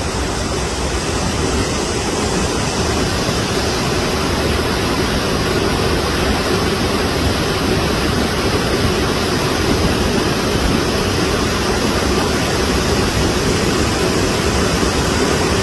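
Floodwater rushing in a swollen seasonal stream (khad): a loud, steady roar of torrent.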